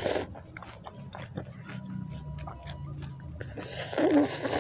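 Noodles from a bowl of bakso soup being slurped into the mouth twice: briefly at the start, and again for about a second near the end, the loudest moment. Wet chewing sounds fill the gap between.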